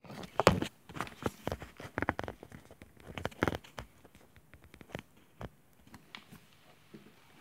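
Phone handling noise: the microphone rubbing and bumping against a knitted wool sweater, a quick run of irregular rustles and knocks that thins out to a few faint clicks about four seconds in.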